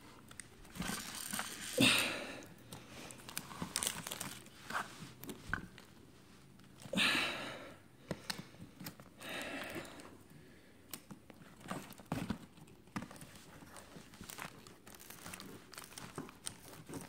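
Adhesive tape tearing and crackling in irregular bursts as a thread is sawed under a glued MacBook Pro battery cell, peeling it off the aluminium case. The cell is glued on tight, and the loudest bursts come about 2 and 7 seconds in.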